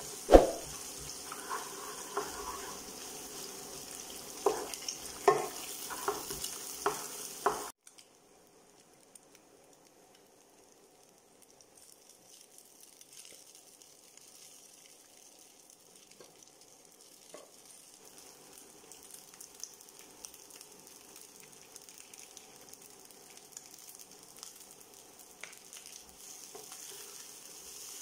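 Egg and dried anchovies sizzling in a frying pan, with a wooden spatula knocking and scraping against the pan several times. About eight seconds in the sound drops off suddenly to a much fainter sizzle with occasional light clicks of stirring, slowly building again as rice is stirred in.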